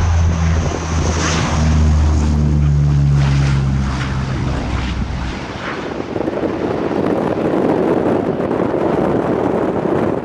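Antonov An-12's four turboprop engines at takeoff power going past: a low propeller drone whose pitch drops as the aircraft passes. The drone fades after about five seconds into heavy wind noise on the microphone.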